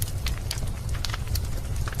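Wood fire crackling in a fireplace: irregular sharp pops and snaps, several a second, over a steady low rumble of the flames.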